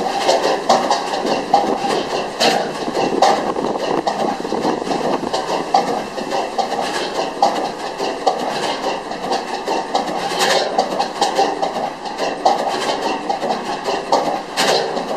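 Large stationary gas engine running, its exhaust coming out of tall stacks as a loud, fast, uneven clatter of sharp beats.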